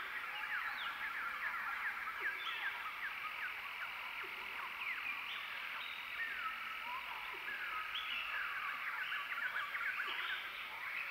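A dense natural chorus of many small animals calling at once: quick falling chirps overlap without pause over a steady high hum.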